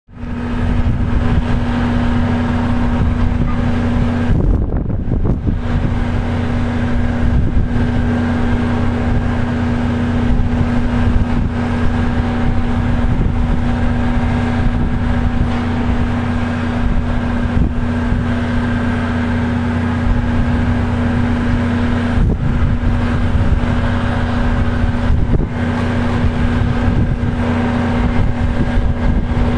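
Hi-rail pickup truck's engine idling: a steady low hum with a strong drone.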